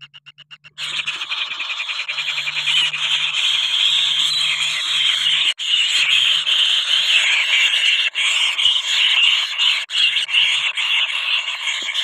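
Kingfisher nestlings giving continuous rasping, rapidly pulsing begging calls, starting about a second in.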